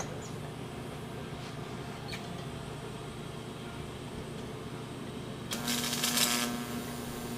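Steady shop background noise; about five and a half seconds in, a hissing, crackling burst lasting about a second starts up, along with a steady hum that keeps going afterwards.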